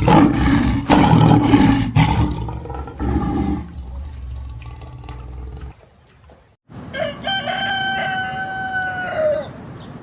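Farm animal calls: loud, rough calling for the first few seconds, then after a short break one long, held call of about three seconds that drops a little at its end.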